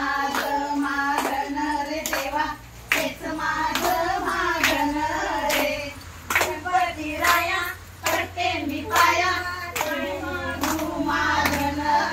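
A group of women singing a Marathi jhimma–fugdi folk song while clapping their hands in a steady rhythm.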